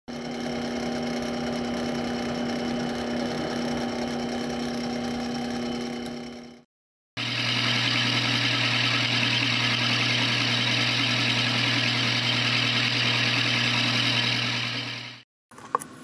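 Sherline benchtop milling machine running steadily, its end mill cutting a block of A2 tool steel. The sound comes in two stretches broken by a short gap about six and a half seconds in. The second stretch is louder, with a lower hum, and stops shortly before the end.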